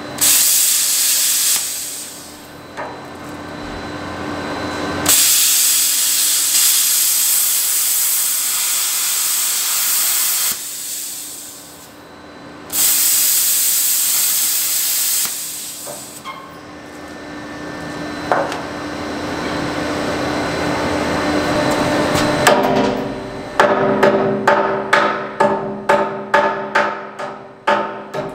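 Cutting torch hissing in long bursts as it cuts the leading edge off a mixer's steel auger screw. About 23 seconds in it gives way to a hammer striking the steel screw flighting, about two to three ringing blows a second.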